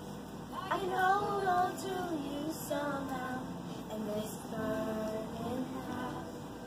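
A young girl singing a slow song in long held notes that glide in pitch, phrase by phrase with short breaks between.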